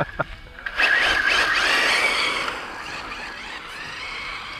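ZD Racing 08426 RC drift car's electric motor whining with wavering pitch and its tyres hissing on gravel as it pulls back onto the path and accelerates away. It starts about a second in and fades as the car moves off.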